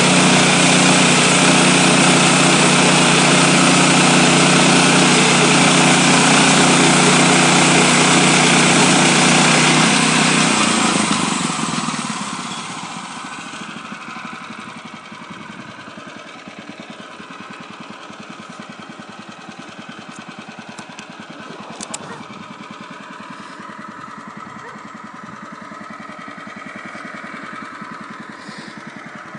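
Woodland Mills HM126 portable bandsaw sawmill's gasoline engine running at high speed, then winding down to a much quieter idle about eleven seconds in. There is a single sharp click later on.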